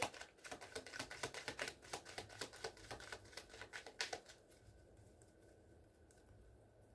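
Tarot cards being shuffled and handled by hand: a quick run of light clicks for about four seconds, then it stops.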